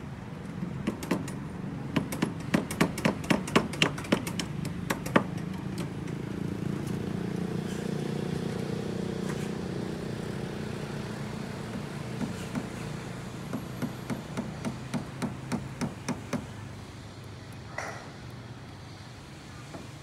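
Hammer blows on the timber formwork of a concrete roof slab, likely nailing the edge boards, in two runs of quick strikes about three a second: one in the first few seconds and one in the second half. A steady low rumble runs underneath.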